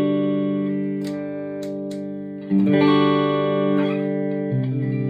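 Electric guitar played through a Marshall MG50 FX modelling amp: chords strummed and left to ring, with a new chord about halfway through and another change near the end.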